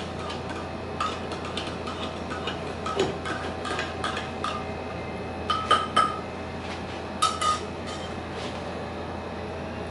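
Light clinking and clattering of dishes and utensils: a scattering of short ringing taps, with the loudest few coming just past the middle.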